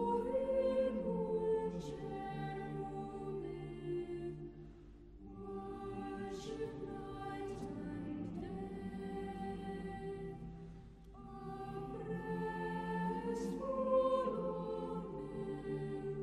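Background music of slow choral singing in long held notes, changing pitch phrase by phrase, with brief lulls about five seconds in and again about eleven seconds in.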